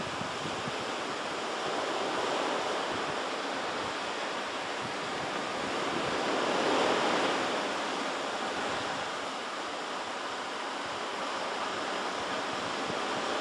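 Pacific surf washing against the coast, a steady rushing with a wave swelling up and falling away about seven seconds in.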